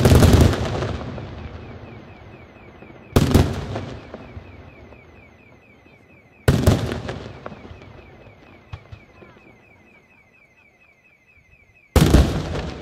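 Aerial firework shells bursting, each with a sudden loud bang followed by a long rumbling echo that dies away over a second or two. Three bursts come about three seconds apart, and the clip opens on the echo of one just before, with a last bang near the end. A faint high chirp repeats several times a second underneath.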